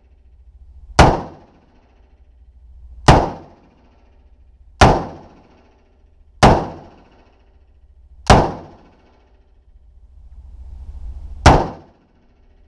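Loud single shots from an M4 carbine firing 5.56 mm rounds, six in all, roughly one every one and a half to two seconds with a longer pause before the last, each with a short echo in the indoor range booth.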